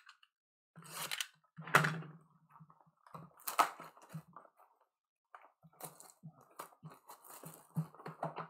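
Cellophane shrink wrap being torn and peeled off a cardboard hobby box of trading cards, with crinkling plastic. There are a few sharper rips in the first four seconds, then lighter crackling as the wrap is pulled away.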